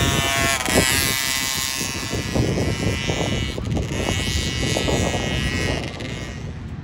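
Small youth motocross bikes racing on a dirt track, their engines buzzing high with a pitch that rises and falls as the riders work the throttle. The sound eases off about six seconds in.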